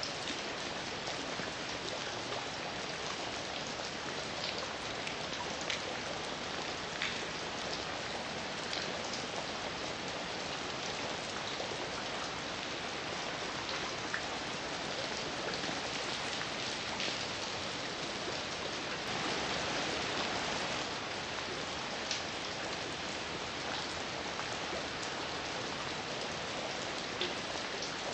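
Steady heavy rain falling, with scattered louder individual drops ticking on a surface and a brief swell in intensity about two-thirds of the way through.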